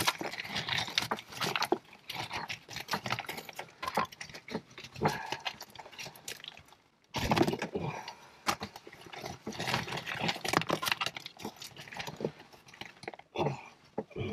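Loose rocks clinking, knocking and scraping against each other as they are pulled and shifted by hand in a tight cave passage, in irregular bursts with a short lull about seven seconds in.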